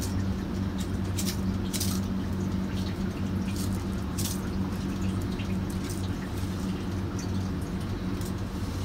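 Coarse salt poured from a plastic jar and patted by hand over foil-wrapped pork belly to build a salt crust, giving scattered light crackles and rustles over a steady low hum.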